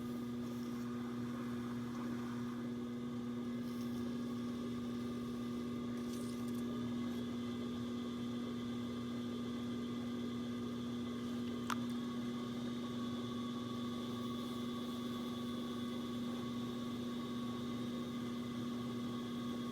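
Electric potter's wheel running with a steady motor hum as a small clay knob is thrown on it, with a single short click about twelve seconds in.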